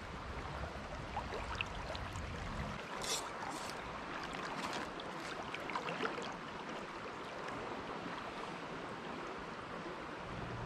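River current running steadily over shallow riffles, a constant rippling rush of water, with a low rumble in the first few seconds and a few faint ticks about three seconds in.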